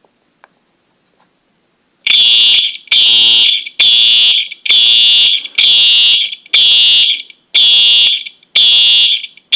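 Simplex fire alarm horn sounding in evenly repeated loud blasts, about five every four seconds, starting about two seconds in.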